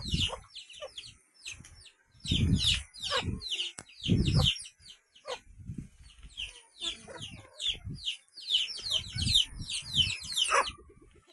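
Chickens calling: a dense run of short, high, falling calls throughout, with a few low thumps in the first half.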